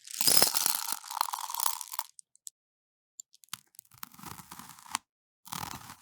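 Crunching, tearing sound effects generated by the Veo3 AI video model. They come in three bursts that cut off abruptly into silence; the first, about two seconds long, is the loudest.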